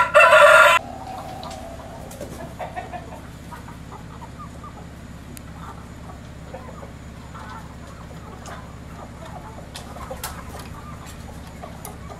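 Chickens clucking softly and intermittently while scratching and pecking in straw and dirt, with one loud squawk in the first second.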